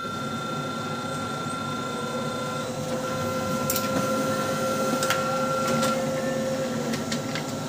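Brother DCP-L2540DW laser printer running a test print: a steady motor and gear whine as the page feeds through, with a couple of sharp clicks midway.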